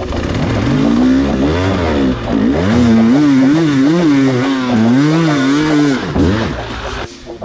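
Enduro dirt bike engine revving up and down in repeated throttle blips while riding slowly over rocks and roots, its pitch rising and falling about once a second. The engine note drops away near the end.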